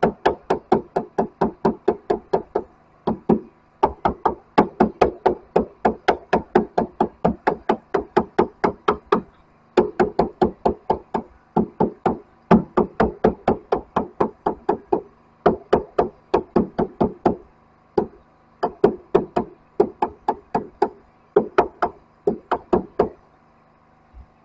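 Claw hammer blows knocking a filler strip into the cut end of a door, in quick runs of about four blows a second with short pauses between runs. The blows stop about a second and a half before the end.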